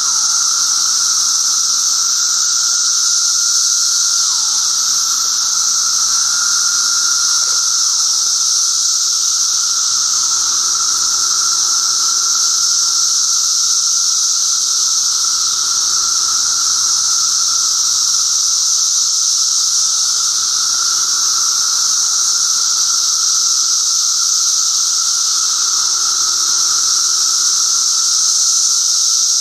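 Dense chorus of Brood XIII periodical cicadas (seventeen-year cicadas): a loud, steady, high-pitched whine, with a lower droning call beneath it whose notes now and then drop in pitch at their ends.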